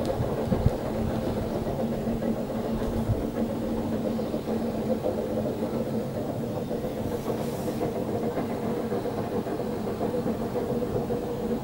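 Steady engine-like hum over a low rumble, unchanging throughout.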